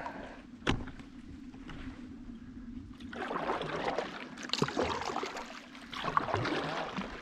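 Canoe paddle strokes swishing and splashing through the water, several in the second half. A single sharp knock comes just under a second in.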